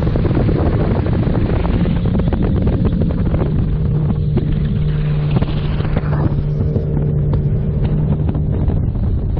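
Wind buffeting the microphone on open water: a loud, steady rumble, with a steady low hum underneath that fades out about eight and a half seconds in.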